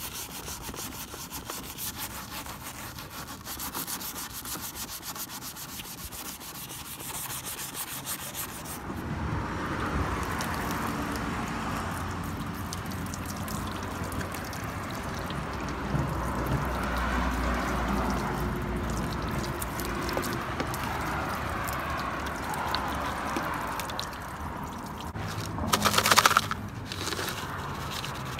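Wet scrubbing and rubbing on a moped's painted plastic body panels with a mesh-headed cleaner bottle. It is a fine scratchy rubbing at first and turns fuller and louder about nine seconds in, with a brief louder burst near the end.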